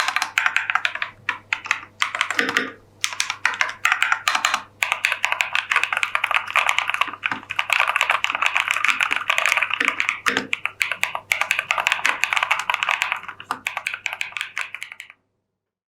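Mechanical keyboard fitted with Epomaker Wisteria linear switches being typed on. The keystrokes come in short bursts for the first few seconds, then run as fast continuous typing that stops suddenly near the end.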